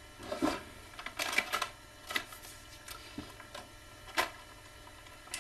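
Action-figure packaging being handled: a string of irregular small clicks and rustles as the toy is taken out of its box.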